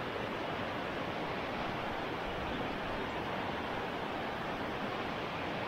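Creek water rushing steadily over a shallow riffle, an even, unbroken hiss.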